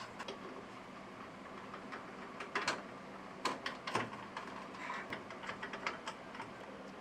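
Irregular light clicks and clacks of computer parts being handled and fitted together by hand, over a faint steady low hum.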